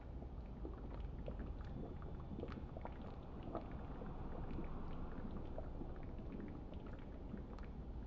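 A pan of chicken caldereta simmering, its thick tomato and coconut-milk sauce bubbling with many small irregular pops over a low steady rumble.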